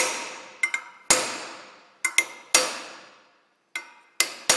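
Hammer blows on a copper punch driving the crash-bent steel saddlebag mount of a BMW R1100S back into shape in a bench vise: about eight sharp metallic strikes at uneven spacing, some in quick pairs, each ringing briefly as it dies away.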